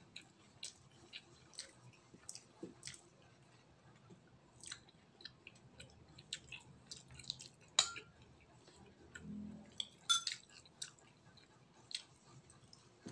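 A man chewing mouthfuls of octopus and rice: soft wet mouth sounds with many short sharp clicks and smacks, the loudest about eight seconds in and a small cluster around ten seconds.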